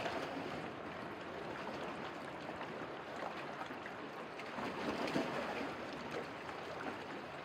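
Gentle sea water lapping and trickling over reef rocks at the shoreline, a soft steady wash that swells a little about five seconds in.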